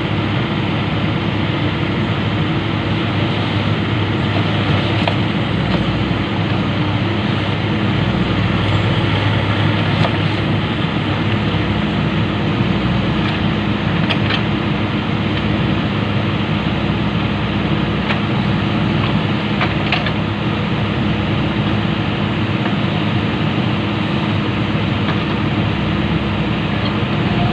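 Excavator's diesel engine running steadily, with a few faint metallic knocks.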